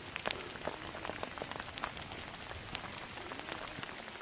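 Sleet falling, many small ice pellets ticking irregularly as they hit the ground.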